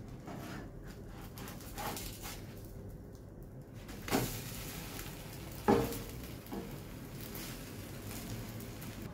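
Egg and bread frying in a nonstick pan with a steady sizzle. It is flipped over with a spatula about four seconds in, and two sharp knocks of spatula and food on the pan stand out, the louder one about six seconds in.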